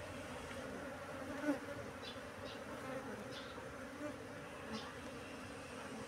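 A mass of honeybees humming steadily around their opened nest, with one short knock about a second and a half in.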